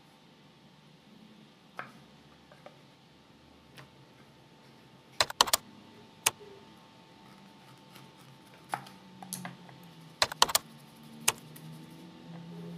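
Kitchen knife cutting on a wooden chopping board: sharp, irregular knocks as the blade meets the board, some coming in quick clusters of two or three, while a chayote is cut up.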